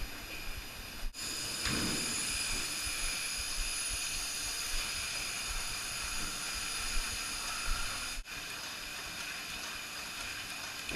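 Milking-parlour machinery running with a steady hiss and a high whine, breaking off briefly twice.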